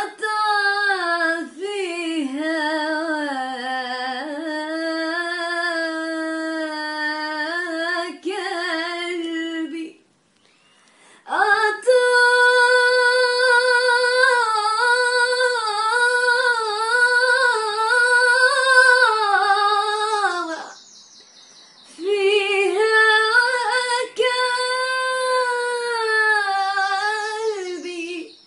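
A woman singing unaccompanied in long, held, ornamented phrases, three of them with short pauses between.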